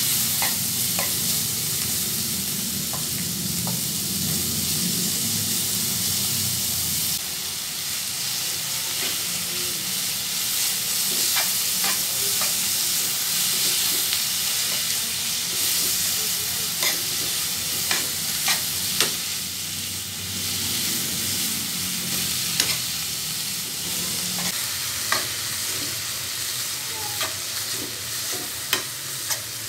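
Sliced beef and onion rings sizzling steadily in a nonstick frying pan, stirred with a metal spoon that clicks and scrapes against the pan now and then, more often in the second half.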